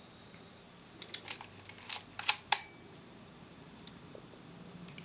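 Mechanical clicks from a Minolta XD7 film SLR as its controls are worked by hand: a few quiet clicks about a second in, then a louder cluster of three sharp clicks around two seconds in.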